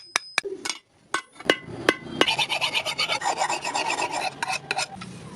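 Sharp clicks and taps over the first two seconds, then about three seconds of fast, rasping strokes of a file on a steel knife blade.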